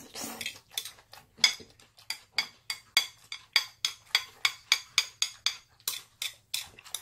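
Metal chopsticks clicking and scraping against the bowl as the jjajang noodles are stirred and mixed, a quick even run of clicks about three a second.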